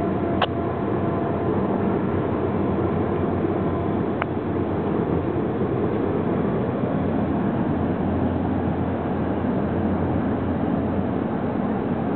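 A long mixed freight train rolling past at a distance, a steady, even rumble of its cars on the rails. There is a sharp click about half a second in and another about four seconds in.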